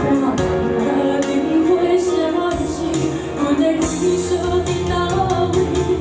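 A woman singing a pop song, holding long notes that slide between pitches, over instrumental accompaniment with a steady drum beat.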